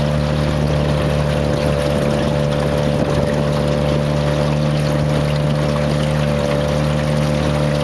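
Loud, steady rush of a high river pouring over and around a temporary cofferdam, with a steady low hum underneath.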